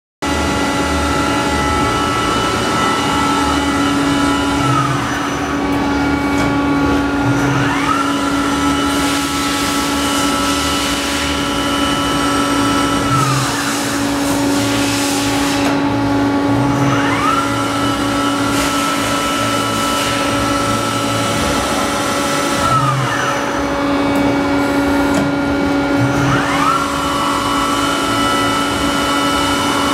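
Okuma LB15 CNC lathe running under power: a steady machine hum, with a whine that rises as the spindle speeds up, holds for a few seconds, then falls as it slows, several times over. Bursts of hiss come and go.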